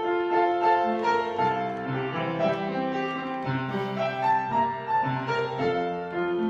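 Piano playing an instrumental interlude between sung verses of a gospel song: a melody over held chords, with no voice.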